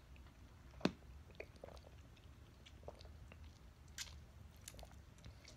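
Faint biting and mouth sounds on a grape fruit jelly in its plastic pack, with scattered small clicks and a sharper click about a second in and another around four seconds.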